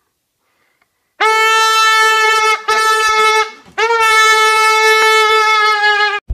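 A loud horn-like tone blown three times at one steady pitch, starting about a second in: a blast of about a second and a half, a shorter one that fades out, then a longer one of over two seconds.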